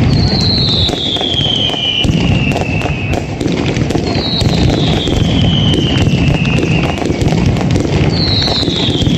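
Night mascletà fireworks: a dense, continuous crackling and banging of firecrackers. Over it come three whistling fireworks, each a falling whistle about two seconds long, roughly four seconds apart.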